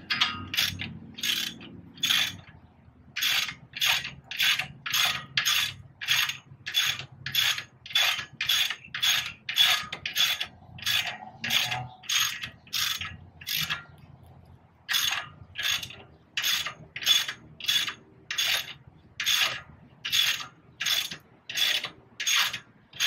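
Hand ratchet wrench clicking in quick, regular strokes, about two a second, as a bolt at the front wheel hub is turned, with a brief pause about two-thirds of the way through.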